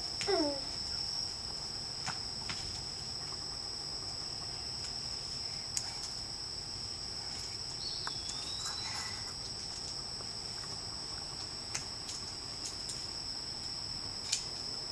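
Steady, high-pitched insect chorus, cricket-like trilling, with a few faint ticks. A brief falling squeak sounds just after the start.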